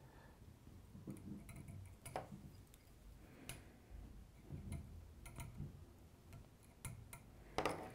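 Faint, scattered sharp clicks and soft rustling from hands working tying thread at a fly-tying vise while tying off the thread, with the loudest click near the end.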